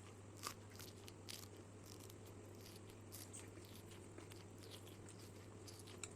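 Near silence with faint, scattered clicks of someone eating: soft chewing and mouth sounds over a low steady hum.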